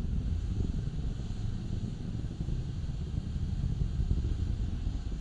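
Low, steady rumble of the Atlas V rocket's RD-180 first-stage engine exhaust.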